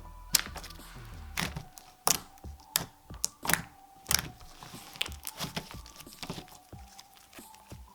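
Thick slime being pressed and squeezed by hand, giving sharp clicking pops, about one every 0.7 seconds, that grow softer after about four seconds.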